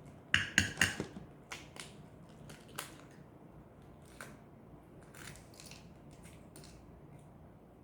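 Hard-boiled egg's shell being cracked, with a quick cluster of sharp cracks in the first second, then scattered faint crackles and ticks as the shell is broken and peeled.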